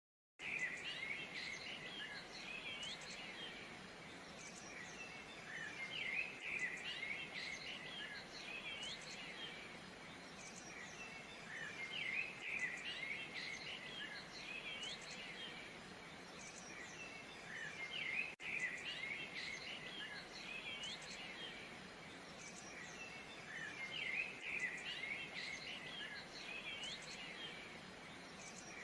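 Many small birds chirping and twittering in swells every five or six seconds over a steady hiss, starting about half a second in.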